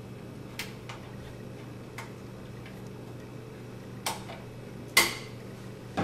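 A flathead screwdriver loosening the centre screw of an outlet cover plate: a few sparse light clicks, the loudest near the end, over a faint steady hum.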